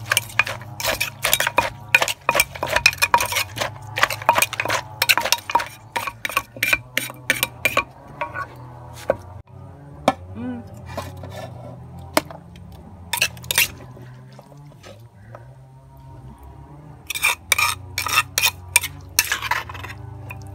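Metal ladle clinking and scraping against the inside of an earthenware mortar as pounded salad is stirred and scooped out. Fast clattering for the first several seconds, sparse taps through the middle, then another quick run of clinks near the end.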